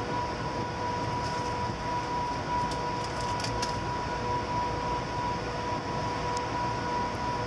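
Amtrak passenger train moving slowly in reverse: a steady rumble with a constant hum-like tone and a few faint ticks.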